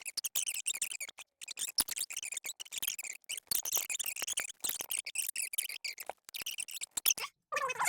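Handling noise from unpacking and assembling a pedestal fan: high-pitched crinkling, rustling and small squeaks in short, broken bursts, with brief gaps throughout.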